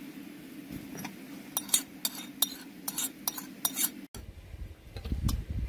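A metal spoon clinks and scrapes against a plate and the rim of a pan as beaten egg is scraped into the pan, making a quick run of sharp clinks. About four seconds in the sound cuts abruptly to a low rumbling noise.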